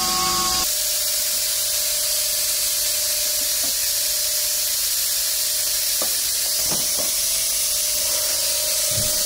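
Steady hiss with a faint steady hum in a tyre shop, and a few light knocks of tools as a truck tyre is worked by hand on its steel rim.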